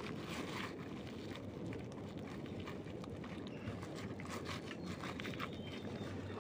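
Hands digging and reaching into a mud crab's burrow in mud and tree roots, making a run of irregular small clicks and scrapes over a steady low background noise.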